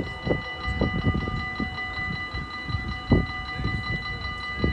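Railway level-crossing warning bell ringing rapidly and steadily while the barrier arms rise, with irregular low thumps underneath.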